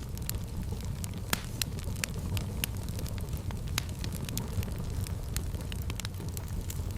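Fire crackling in a fireplace: a steady low rumble of flames with frequent sharp pops and snaps, the loudest pop about a second and a half in.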